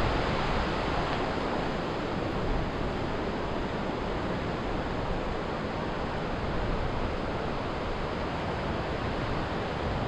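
Steady rushing noise with no distinct events, like wind or running water.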